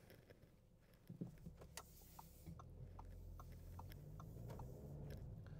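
Faint, even ticking of a car's turn-signal indicator, about three ticks a second, inside the cabin of an Audi Q2. From about halfway a low hum of the engine and tyres builds as the car moves off.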